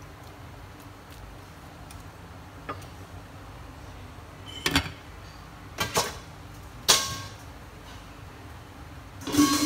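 Chopsticks knocking on a stainless-steel cooking pot and a glass lid clinking down onto it: a handful of sharp clinks spread over several seconds, the loudest about seven seconds in, ringing briefly, over a low steady background.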